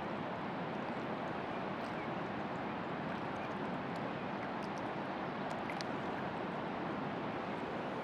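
Steady rushing of river water, as from rapids or a small falls, with a few faint high ticks.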